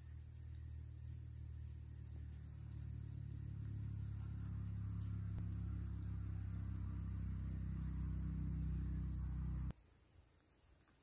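A low, steady hum with several layered pitches, growing a little louder and then cutting off abruptly near the end. A thin, steady high-pitched insect trill runs throughout.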